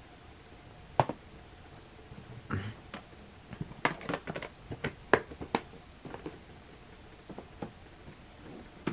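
Plastic VHS clamshell cases being handled: a sharp click about a second in, then a quick run of clicks and knocks a few seconds later as cases are shut and set down in a row, with a brief rustle between.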